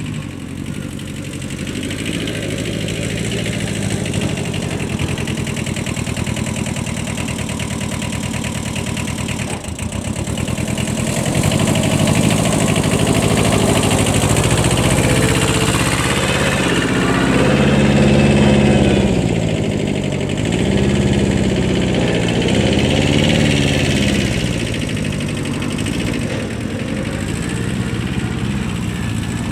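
Kubota 5001 compact tractor's small diesel engine running, its pitch rising and falling repeatedly and louder from about a third of the way in until near the end, as it works under changing load.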